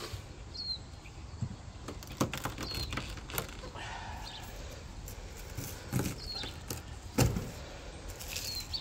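A few scattered sharp knocks and clicks from a knife and food being handled at a table, the loudest two near the end. A short high chirp recurs every couple of seconds in the background.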